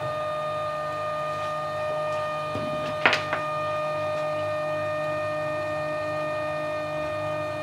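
Steady whine of the clay 3D printer's stepper motors running, held on one pitch with a low regular pulsing beneath it. A single sharp clack sounds about three seconds in, as the forming rib arm lifts away from the pot.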